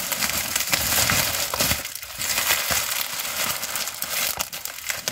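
Paper packaging crinkling and rustling as a parcel is unwrapped by hand, a continuous irregular crackle.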